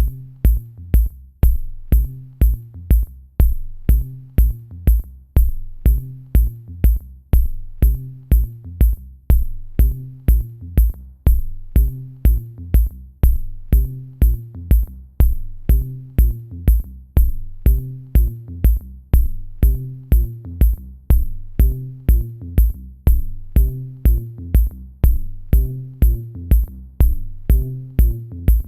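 Electronic background music with a steady drum-machine beat, about two beats a second, a pulsing bass line and hi-hat ticks.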